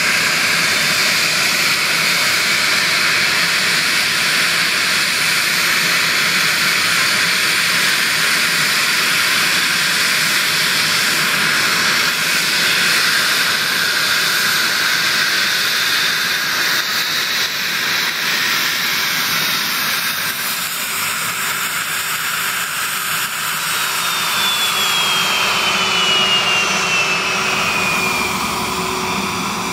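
A Cessna 550B Citation Bravo's twin Pratt & Whitney Canada PW530A turbofans running at taxi power: a steady jet whine and rush. Near the end a thin whine falls in pitch.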